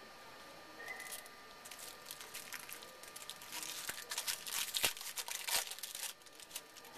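Foil wrapper of a Bowman Chrome baseball card pack being torn open and crinkled in the hands: an irregular crackling that starts about a second in and is heaviest in the second half.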